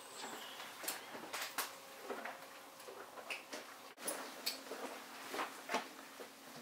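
Scattered light clicks, rustles and knocks of horse tack being handled: bridle fittings and a lead chain, then a saddle pad and saddle being set on a horse's back. A faint steady hum comes in about four seconds in.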